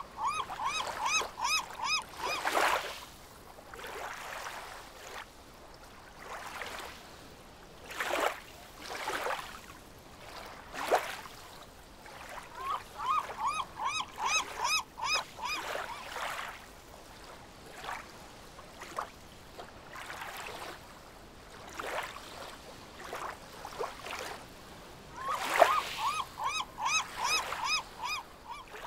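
Splashing and swishing water with three bouts of rapid, high-pitched chirping calls, each bout a quick run of about seven chirps a second.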